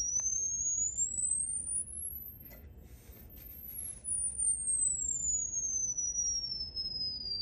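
Pure sine test tone played through a car audio speaker by an SMD IM-SG impedance meter/signal generator. The tone glides up from high to very high pitch over about three seconds, fainter at the top, then slides back down. This is a frequency sweep to check the replacement speaker's impedance.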